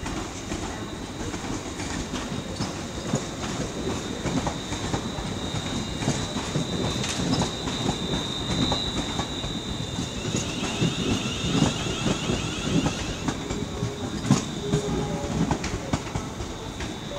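ScotRail electric multiple unit running slowly over station pointwork: wheels clattering and clicking over the points and crossings with a steady rumble. A high thin tone sits over the clatter from about a third of the way in.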